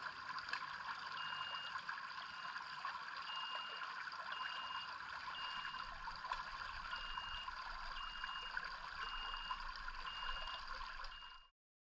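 Shallow stream running over stones, with a backpack electrofisher's high warning beep repeating about once a second, each beep about half a second long, the signal that the unit is powered and putting current into the water. The sound cuts off just before the end.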